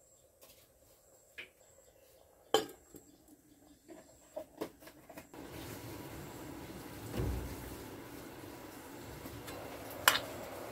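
Aluminium cooking pot and lid clanking: a series of light metal knocks with one sharp clank in the first half, a dull thump, and another sharp clank near the end as the lid is handled. A steady background hiss comes in about halfway.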